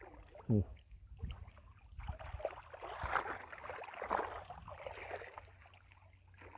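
Irregular splashing and sloshing of shallow water, busiest in the middle stretch.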